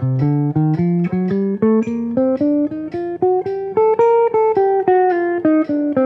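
Archtop jazz guitar playing the B-flat major bebop scale in even eighth notes, one clean picked note at a time, about four notes a second. The line climbs about two octaves, peaks about four seconds in, then turns and runs back down.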